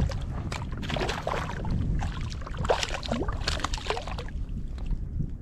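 Small trout splashing and thrashing at the water's surface on the line as it is brought in by hand, with irregular slaps and sloshes of water.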